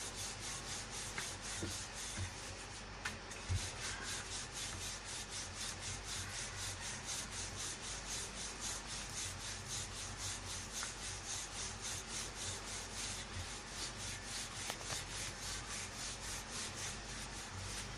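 A wooden rolling pin rolling out a ball of yeasted dough into a flatbread, in a steady rhythm of quick rubbing strokes against the board. There is one light knock about three and a half seconds in.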